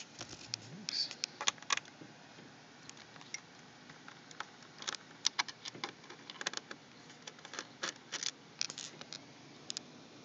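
Irregular small sharp clicks and light taps of hands handling small parts and tools close to the microphone, scattered through the whole stretch.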